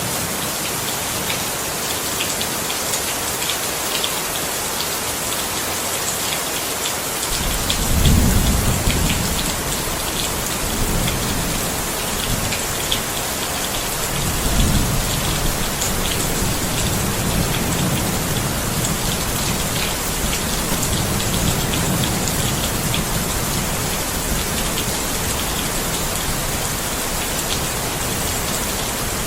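Steady rain, a continuous hiss of drops. About a quarter of the way in, rolling thunder joins it: a low rumble that swells twice, loudest soon after it starts and again about halfway, then dies away.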